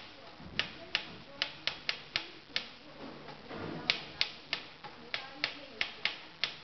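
Typewriter keys striking in an irregular run of sharp clacks, about three a second.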